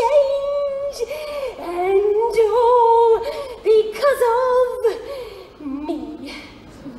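A woman singing in musical-theatre style: a string of long held notes with swoops between them, then a lower, quieter note near the end.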